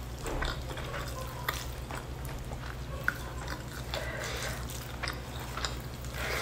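Close-miked chewing of rice and chicken, with many small wet mouth clicks, over the sound of fingers pressing and gathering rice on paper; a steady low hum underneath.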